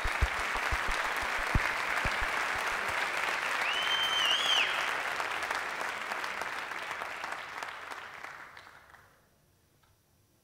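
Audience applauding and cheering, with a few low thumps in the first two seconds and a whistle from the crowd about four seconds in. The applause fades out to silence near the end.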